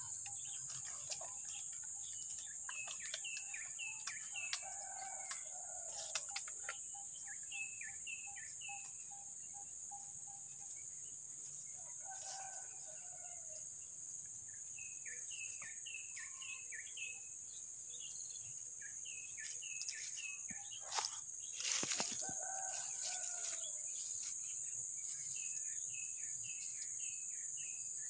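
A steady high insect drone with a bird repeatedly calling in quick runs of four to six short, downward-hooked whistled notes, every few seconds. A lower, shorter call sounds now and then, and a couple of sharp knocks come about three-quarters of the way through.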